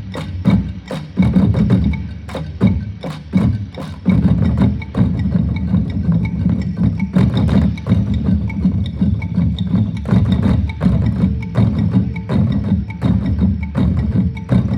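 Manipuri pung drums played in a fast, dense rhythm of hand strokes, deep booming strokes mixed with sharp dry slaps, with a faint steady ringing above them.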